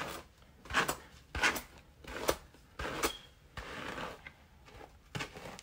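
Hairbrush strokes through a tangled wig's hair: short brushing swishes, about one a second at uneven spacing.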